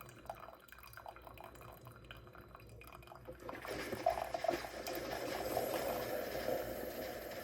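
Single-serve K-cup coffee maker brewing, with coffee dripping and trickling into the cup. The brewing noise grows much louder about three and a half seconds in and stays up.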